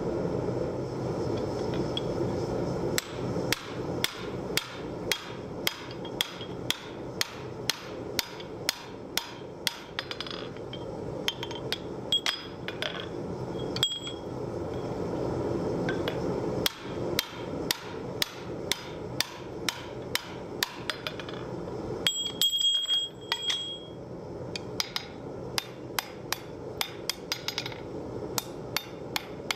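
Hand hammer striking red-hot steel on an anvil in a steady rhythm of about two blows a second, drawing out a butcher's hook. Before the blows start, a steady rushing noise fills the first few seconds. The blows break off twice, and during the second break a clear high ring is heard.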